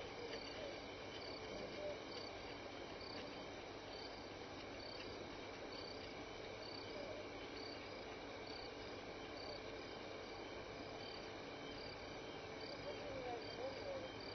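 Night chorus of crickets and other insects: a short high chirp repeating about every 0.7 s over a steady trilling hiss. A faint wavering call from some other animal rises through it near the end.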